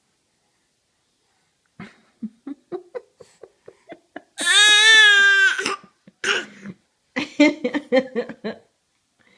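A person laughing hard: a run of short breathy bursts, then a loud high-pitched wail of laughter held for about a second, then more bursts of laughter.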